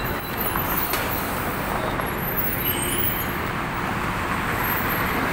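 Steady road traffic noise: a continuous rumble and hiss of cars and other vehicles passing on a busy city road.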